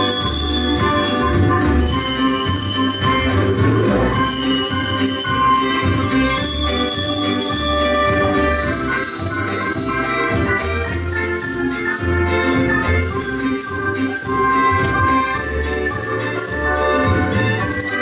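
A group of young children ringing colour-coded handbells, single bell notes starting one after another to play a melody, each note ringing on. Underneath runs accompaniment music with a low, pulsing beat.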